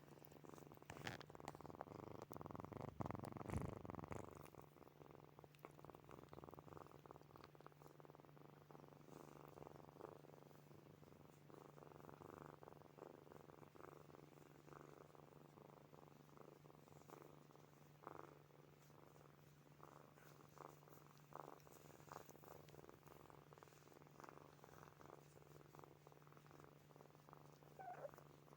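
Sleeping kittens purring faintly, loudest in the first four seconds, with light scattered clicks.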